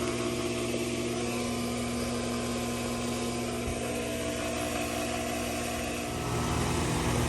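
Steady mechanical hum with several fixed tones. About six seconds in, a lower drone joins and the sound grows louder: the 4-ton Carrier Performance Series condensing unit starting up.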